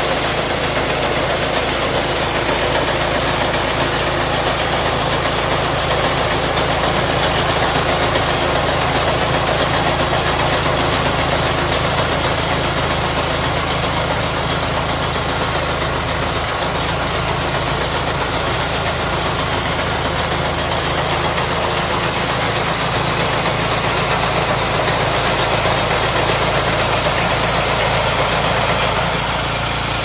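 Diesel engine of a mini crawler rice combine harvester running steadily as the machine cuts and threshes rice, its low engine hum under an even mechanical rushing noise.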